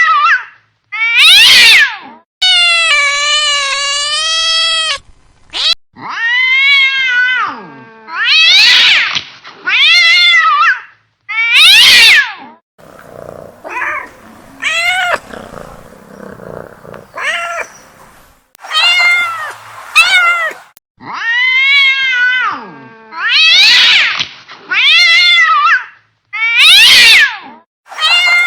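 Agitated domestic cat meowing loudly again and again, in drawn-out calls of a second or two each, one of them held steady for a few seconds near the start. Around the middle the calls give way to quieter, lower, rougher sounds.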